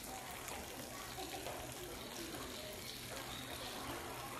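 Steady rushing hiss of outdoor background noise, with faint distant voices of people talking.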